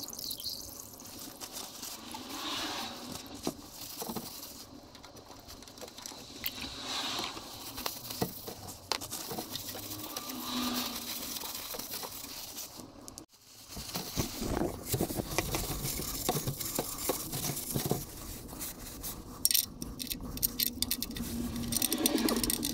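Gloved hands working the old oil filter off through the undertray opening: irregular rustling, scraping and small clicks of plastic and metal being handled.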